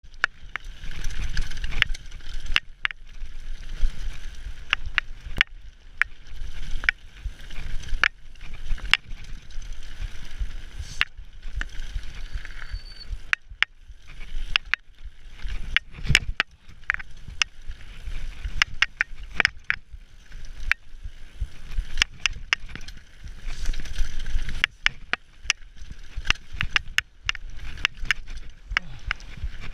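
Mountain bike descending a rough dirt-and-gravel trail at speed: tyres rumbling over the ground, with frequent sharp clicks, knocks and rattles from the bike over bumps.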